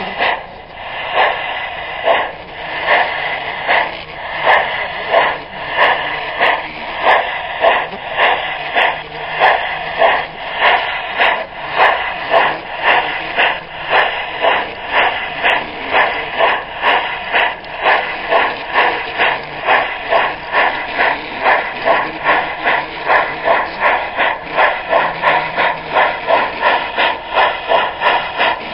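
Garden-scale model steam locomotive's sound unit chuffing in a steady rhythm that gradually quickens, from a little over one chuff a second to about two and a half.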